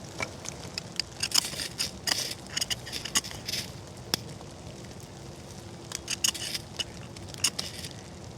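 Knife working split hardwood: two bursts of sharp cracking and scraping clicks, the first about a second in and the second about six seconds in, with a single click between them. Rain keeps up a steady hiss underneath.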